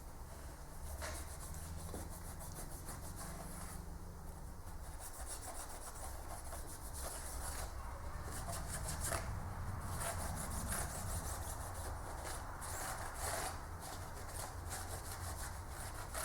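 A rag rubbing over the mating surface of a Toyota 2SZ cylinder head in quick, irregular strokes, degreasing it before sealant goes on.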